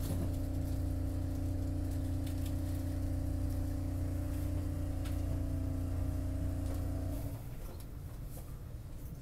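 Steady hum of a stationary Market-Frankford Line subway car's onboard equipment: a low drone with a couple of held tones. It cuts off about seven seconds in, leaving a quieter background with a few faint ticks.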